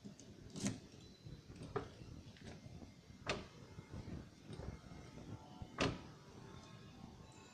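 2014 WagonR's doors or latches being worked: a handful of sharp clicks and clunks, about four spread over several seconds, the loudest about three-quarters of the way through.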